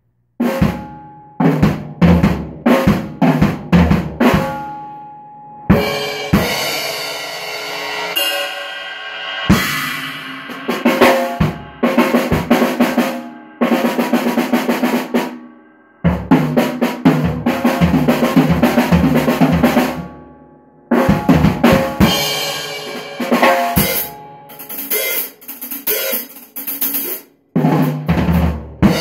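Acoustic drum kit played solo: snare, bass drum and toms struck with cymbals and hi-hat, in grooves and fills. The playing stops briefly about three times.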